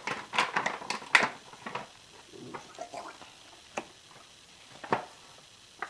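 Handling noise as baking soda is scooped from its bag: a quick run of crinkling and scraping at the start, then a few scattered sharp taps.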